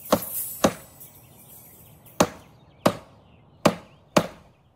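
A series of sharp, heavy strikes: six in three pairs, the two blows of each pair about half a second apart. A faint high hiss lies under the first second.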